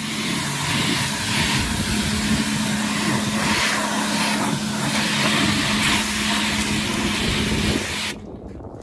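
Pressure-washer lance spraying a high-pressure jet of water onto a mini digger's muddy tracks and the concrete, a steady hiss with a steady hum underneath. It cuts off suddenly about eight seconds in as the spray stops.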